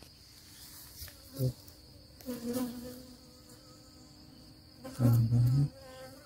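Wild Asian honeybees (Apis cerana) buzzing at their nest entrance in a tree hollow. Bees flying close past the microphone make a low drone that comes and goes, clearest about two and a half seconds in. A brief low hum about five seconds in is the loudest sound.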